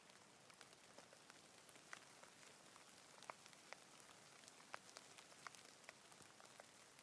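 Rain falling: a faint, steady hiss with scattered individual drops ticking sharply at irregular intervals.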